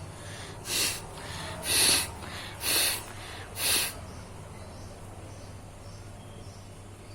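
A person blowing hard through the nose four times in quick succession, about a second apart, each a short breathy gust of air.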